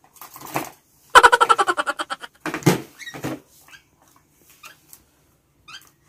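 African lovebird chick calling: a loud, rapid run of chirps about a second in, typical of a hand-fed chick begging for food. Two shorter calls follow, then a few faint high chirps.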